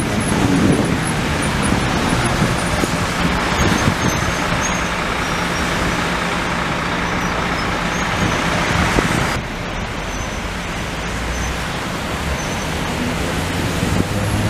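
Historic FVV 'Bengáli' articulated electric tram running close by on its rails: a steady rumble of wheels on track with a low hum underneath. The sound drops a little about nine seconds in.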